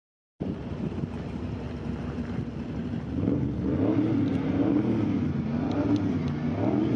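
Car engine running, its pitch wavering up and down a little. It starts abruptly about half a second in.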